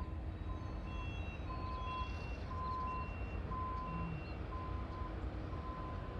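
Reversing alarms on construction vehicles: two beepers of different pitch, a lower and a higher one, each beeping about once a second, over a steady low rumble.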